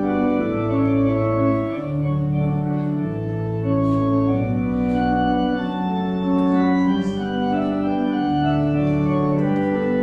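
Organ playing slow, sustained chords over a moving bass line, the chords changing every second or two.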